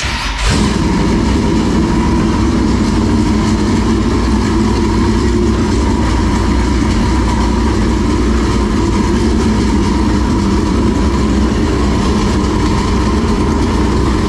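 Dirt late model race car's carbureted V8 firing up at once and then running steadily and loudly. It starts after the distributor plug wiring was swapped to correct reversed polarity.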